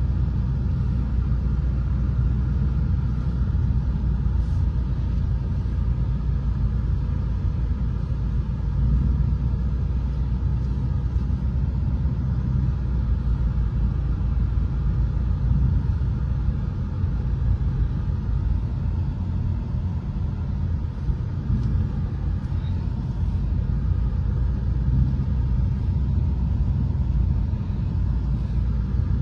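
Ford Mustang's engine and road noise heard inside the cabin while driving: a steady, low drone with no marked revving.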